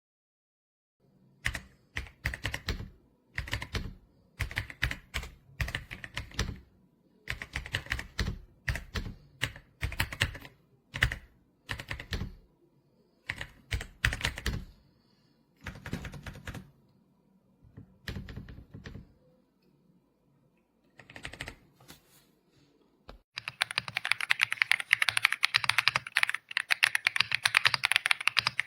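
Keystrokes on an RK Royal Kludge R75 gasket-mounted mechanical keyboard: short bursts of typing with pauses between them, then fast continuous typing about two-thirds of the way in.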